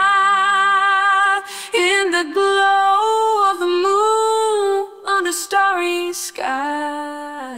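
Music: a woman's voice singing long held notes in several phrases with short breaks, getting quieter toward the end.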